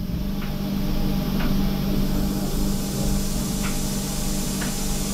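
Okuma MB-46 VAE vertical machining centre running with its table at rest: a steady machine hum with a few faint ticks.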